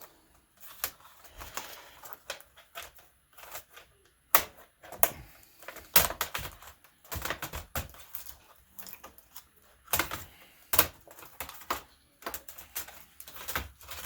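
Irregular sharp plastic clicks and snaps as an HP G60 laptop's keyboard and trim are pried loose from their clips, with a few louder snaps as clips let go.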